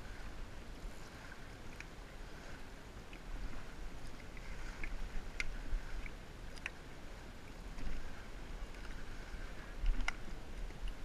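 Water lapping against a plastic floating dock and a jet ski's hull as a hand moves in the water, with a few sharp ticks about five, six and a half and ten seconds in. A low wind rumble is on the microphone.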